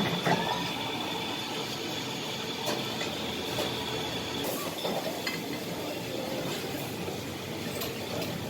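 Steady kitchen noise with a faint high whine in the first half and a few light clinks of metal utensils.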